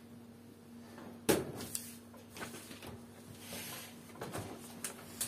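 Microphones and papers being handled on a table: one sharp knock about a second in, then several lighter clicks and rustles, over a faint steady hum.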